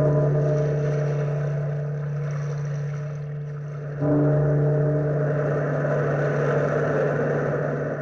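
A large bell tolling slowly, one stroke about every four seconds, each stroke ringing on and fading, over a steady wash of surf.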